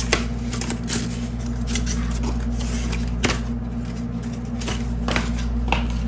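Scattered handling noises: a handful of short clicks and knocks as the cardboard box and its contents are handled, over a steady low hum.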